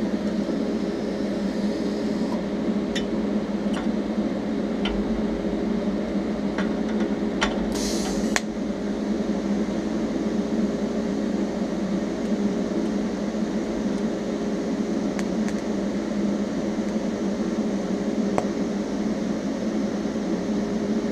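TIG welding arc on thin-walled steel tube, laying a series of short tack welds: a steady electric buzz, with scattered sharp clicks and a short hiss about eight seconds in.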